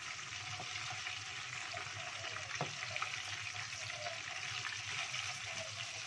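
Battered chicken wings deep-frying in hot oil in a small pot, a steady sizzle, with a few light knocks of a wooden spatula stirring them.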